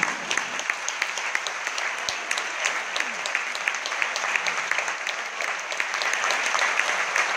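Theatre audience applauding, a dense, steady clapping that follows the end of the song.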